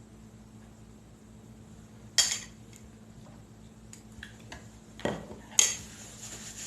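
Cutlery clinking and scraping against a plate while eating: three sharp clinks about two seconds in and twice about five seconds in, the last the loudest, with a few faint ticks between.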